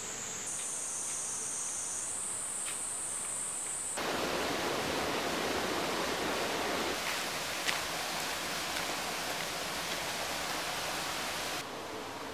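Outdoor ambience: a steady high-pitched insect buzz over faint hiss, cut off sharply about four seconds in by a louder, even rushing noise that changes near the middle and stops abruptly near the end.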